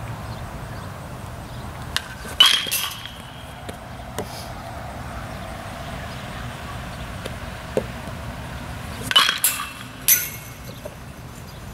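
Baseball bat hitting pitched balls in a batting cage: two sharp cracks with a brief ringing, about two and a half seconds in and again about nine seconds in. A second sharp clatter follows about a second after the later hit.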